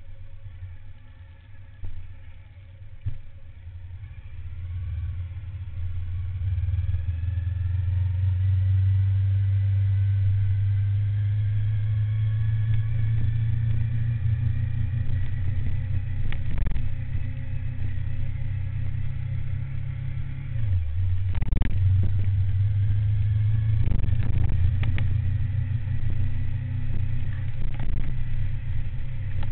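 Suzuki SV1000N's V-twin engine pulling away from almost a standstill and accelerating steadily, getting louder over the first several seconds. It dips briefly about two-thirds of the way through before pulling again. Heard from a camera mounted on the motorcycle.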